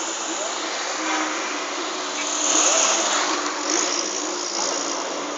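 Road traffic noise: a steady hiss of vehicles that swells louder for about a second around the middle.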